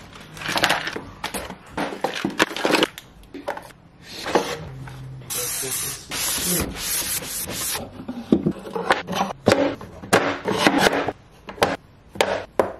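Small objects clattering and knocking as a cluttered wooden junk drawer is emptied. In the middle comes a few seconds of rubbing as the drawer's plywood bottom is wiped down. Later, wooden dividers knock as they are set into the drawer.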